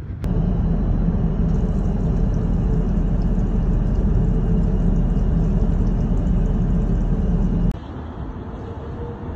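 Steady in-flight drone of an Airbus A380 heard inside its lavatory, a deep rumble with a faint hum on top, while the sink tap runs. It cuts off suddenly near the end to a quieter, steady background.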